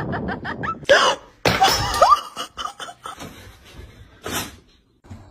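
A person laughing in quick rapid pulses, then two sharp gasping exclamations with short rising pitch about one and two seconds in, and softer scattered sounds after.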